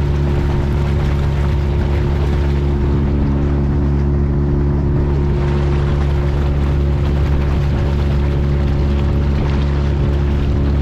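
Motorboat engine running at a steady speed, with wind and water noise over it.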